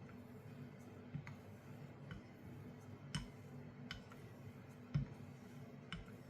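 Custom straight razor being honed on a stone: a faint click about once a second as the blade is flipped over on its spine between strokes, over a low steady hum.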